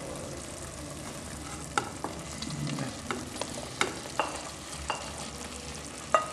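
Chunks of chicken, cabanossi sausage and beef being pushed off a bowl with a spoon into a hot aluminium pot of carapulcra, with a steady sizzle from the pot. Scattered knocks of the spoon against the bowl and pot, one near the end ringing.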